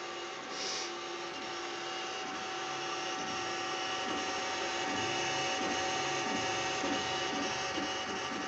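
Zortrax M200 3D printer printing: a steady fan hum under the stepper motors' whine, which comes in short notes and quick pitch sweeps as the print head moves, more busily from about halfway through.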